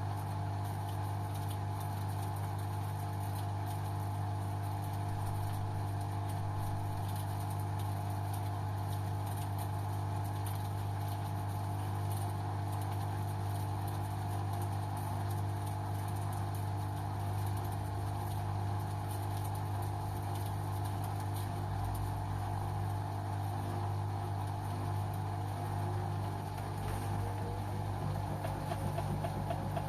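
LG washing machine running its Synthetic 30 cycle with a steady low hum and a few steady higher tones; near the end a tone glides slightly upward.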